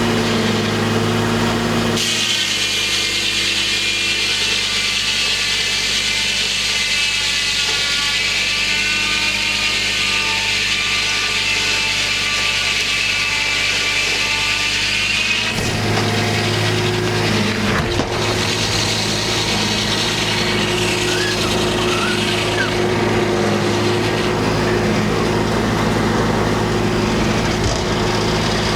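Homemade circular sawmill sawing a large white pine log. The engine runs steadily, then about two seconds in the blade's high whine in the wood takes over for some thirteen seconds before the engine note comes back.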